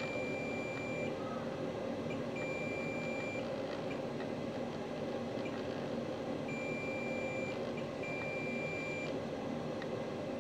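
Multimeter continuity beeper sounding as the probes touch the phone logic board's power rails: four steady, high beeps of about a second each, over a steady background hum. The beeping marks low-resistance lines, not a full short.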